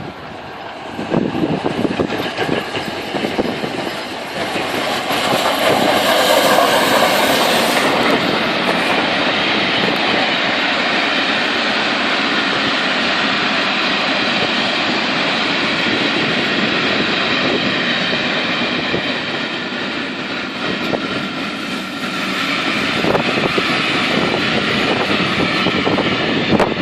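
Steam locomotive LNER A1 4-6-2 no. 60163 Tornado running past with its train: a long, steady rail rumble with wheels clattering over the track. It swells to its loudest with added hiss about six seconds in.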